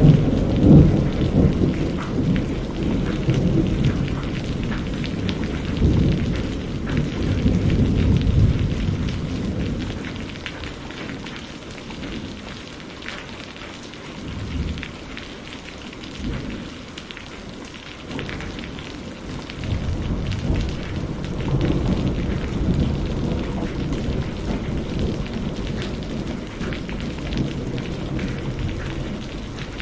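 Steady rain pattering down with rolling thunder. The thunder rumbles heavily at first, dies down in the middle, and rolls back in about two-thirds of the way through.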